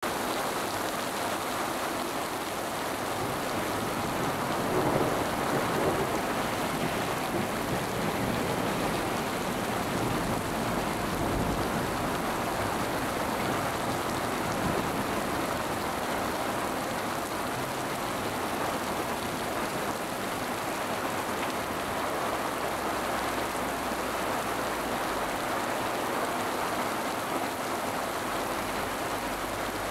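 Heavy downpour: rain pouring steadily onto a paved street and splashing into standing water. A car drives through the wet road near the end.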